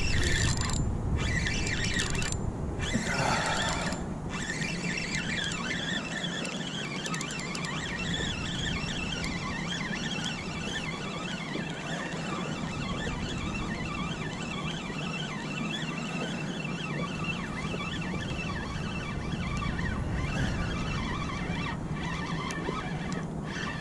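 Spinning reel being cranked steadily, winding line in against a hooked fish on a bent rod.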